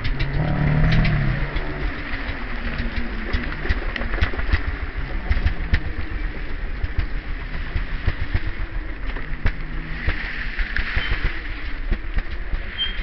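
Trials motorcycle engine running at low revs, the throttle blipped unevenly as the bike moves slowly over rough ground, with many small knocks and bumps.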